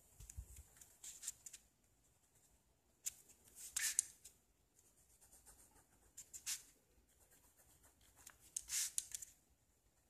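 Pen tip scratching across a spiral notepad's paper in four short bursts of drawing strokes, a few seconds apart, with a soft low bump at the very start.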